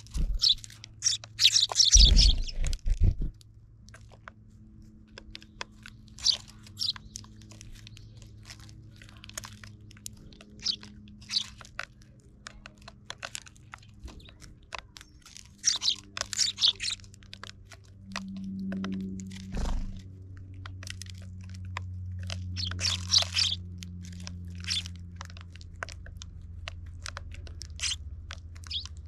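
Eurasian tree sparrows pecking and cracking seeds in plastic feeding trays: a run of sharp, irregular clicks and crunches, with a few denser flurries of crackling. A low steady hum runs underneath.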